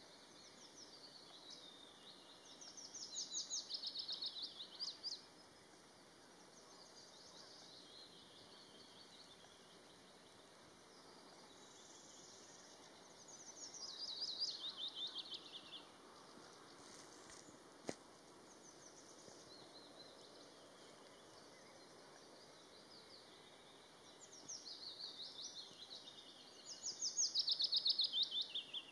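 Willow warbler singing: phrases of quick, soft notes that run down the scale and last a few seconds each. The three loudest come about 3 seconds in, about halfway through and near the end, with fainter song between them.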